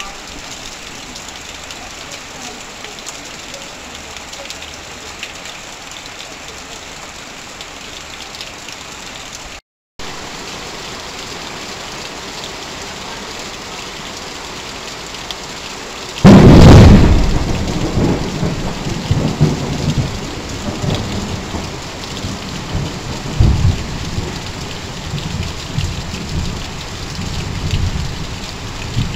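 Heavy rain pouring steadily onto corrugated metal roofing and sheeting, with runoff streaming off a roof edge; the sound drops out for a split second about a third of the way in. Just past halfway a sudden loud thunderclap breaks out, followed by thunder rumbling on and off under the rain.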